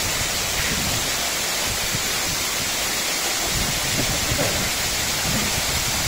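A waterfall about 100 feet high, plunging down a rock face into a pool: a steady, even rush of falling water.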